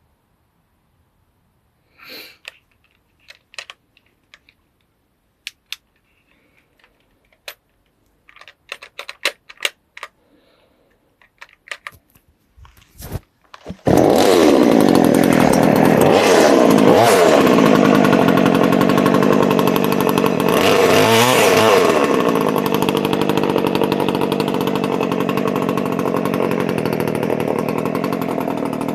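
Parker PCS-2600 two-stroke petrol chainsaw. A series of clicks and knocks is followed, about halfway through, by the engine starting up suddenly and running loudly. It is revved up and down twice, then keeps running steadily.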